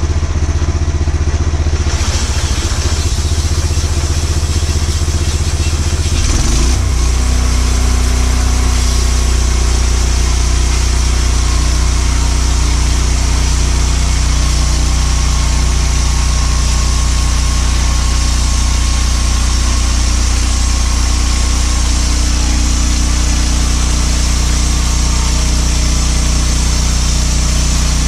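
Gasoline engine of a homemade bandsaw sawmill running, with a hiss joining about two seconds in. About six seconds in, the engine speeds up with a quick rise in pitch, then runs steadily at the higher speed as the band blade cuts through a log.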